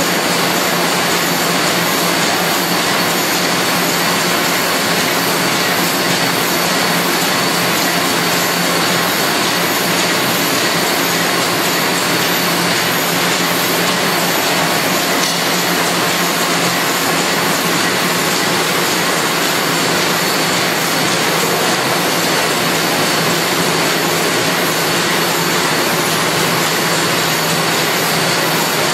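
Automatic pocket envelope making machines running steadily in the workshop: an even, unbroken machine noise with a low hum and a thin high whine.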